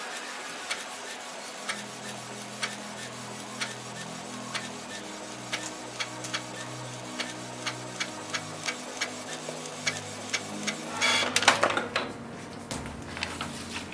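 Canon PIXMA G3010 inkjet printer printing a colour photo: its mechanism ticks in a regular rhythm, about once a second at first and about twice a second from about halfway through. Near the end comes a short, louder whirring rush as the printed sheet is fed out.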